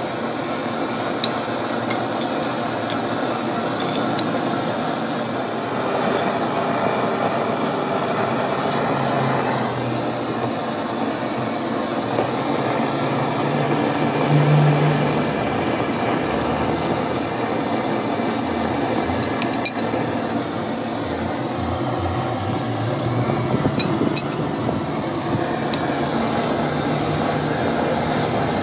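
Scattered light metallic clinks and knocks as a steel casting jig and a stack of lead-acid battery plates are handled and set in place, over a steady background noise.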